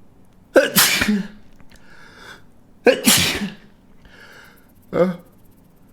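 A man sneezing three times in a row, with a breathy inhale between the sneezes. The third sneeze is shorter than the first two.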